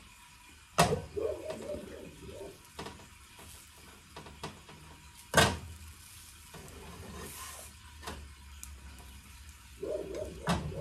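Cookware handling at a frying pan: two sharp knocks, one about a second in and one about five seconds in, from a pan lid and spatula, then a plastic spatula working in a non-stick pan near the end, over a faint sizzle of a pancake frying.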